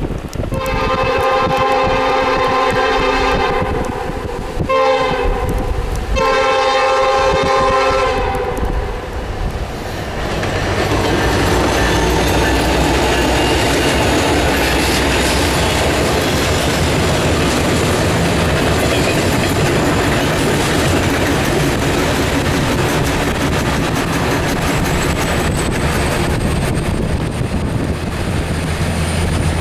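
Diesel freight locomotive's air horn sounding a long blast, a short one and another long one as it approaches. Then the locomotive and a double-stack intermodal train run past with the steady noise of engine and wheels on rail.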